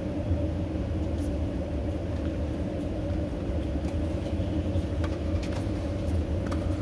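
Steady low rumble of a motor vehicle running, with a few faint ticks.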